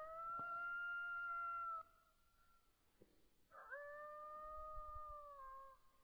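Two long coyote-style howls, each sliding quickly up in pitch and then held steady for about two seconds; the second starts a little over half a second after the first ends, is pitched a little lower and sags slightly near its end.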